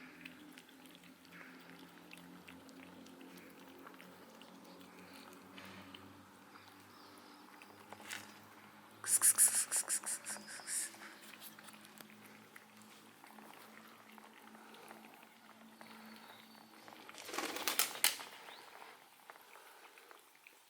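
A cat coughing in two bouts of quick, wheezing hacks, the first about nine seconds in and lasting about two seconds, the second shorter near the end, over a faint low hum.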